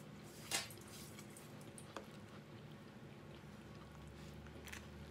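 A fork digging into a chicken pot pie in its foil tin: a short sharp crunch of crust about half a second in, then soft squishy sounds of the filling and a few light clicks.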